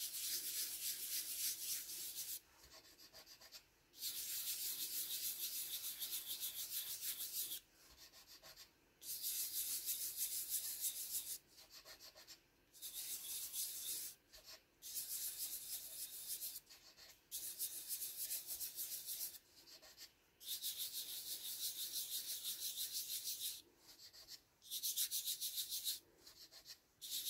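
Fingertips rubbing soft pastel chalk dust across white cardstock: a quick, dry scrubbing made of rapid back-and-forth strokes, in spells of one to three seconds with short pauses between them. The rubbing brings out an image stamped in Versamark, and it darkens the longer the card is rubbed.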